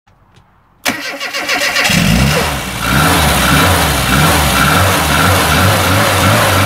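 Car engine starting up suddenly about a second in, then running with a note that rises and falls over and over.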